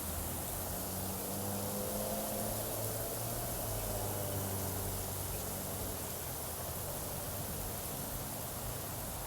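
Heavy rain falling in a downpour, a steady hiss. A low hum swells and fades underneath during the first half or so.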